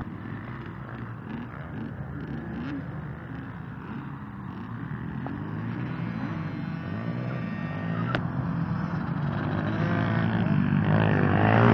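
Youth scrambler dirt bike engine running and revving up and down as the bike rides along a dirt track toward the listener, growing steadily louder.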